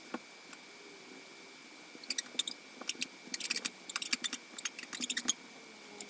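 Pen writing on a paper sheet on a table: a quick run of short scratches and taps from about two seconds in until past five seconds, with a single tap near the start and another near the end. Under it, the steady whir of the Supermicro SuperServer's fans runs on.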